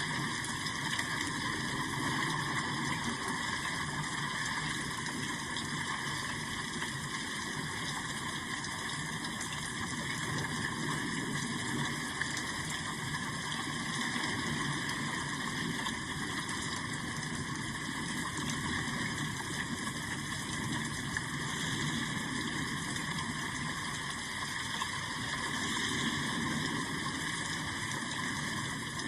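Steady rain falling, a continuous even hiss that does not let up.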